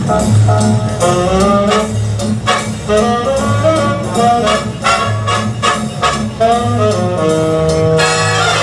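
Jazz music with brass instruments playing melody lines over a steady bass beat.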